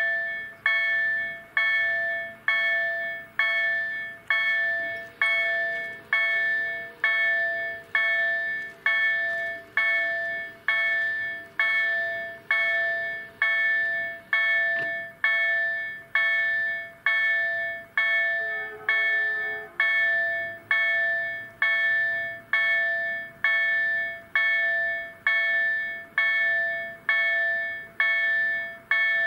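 Level crossing warning bell ringing steadily, about five strikes every four seconds, each ringing out before the next. It warns road users that a train is approaching while the barriers come down.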